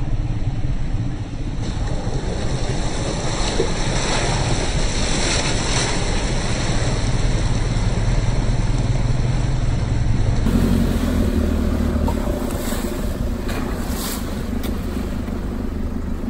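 Four-wheel drive running slowly along a dirt track, its engine humming steadily while the tyres roll over dirt and splash through muddy puddles, with wind on the microphone held out the side window. The engine note shifts about ten seconds in.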